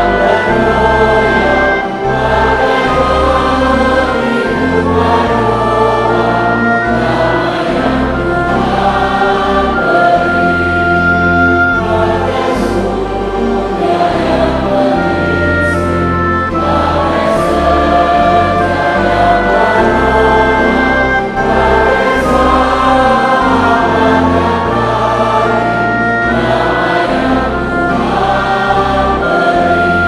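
A congregation singing a hymn in Indonesian in unison with instrumental accompaniment, the bass stepping between held notes every second or two.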